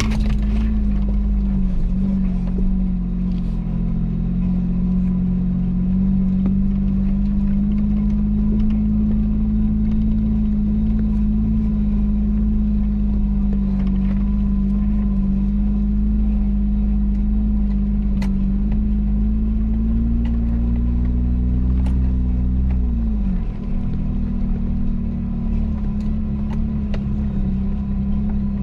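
Vehicle engine running at a steady speed under way, with a brief drop in engine pitch about 23 seconds in, as when the throttle is eased or a gear is changed, before it picks back up.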